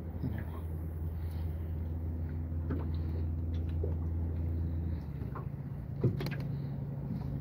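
A boat's motor running low and steady, its hum changing pitch about five seconds in. A sharp knock about six seconds in.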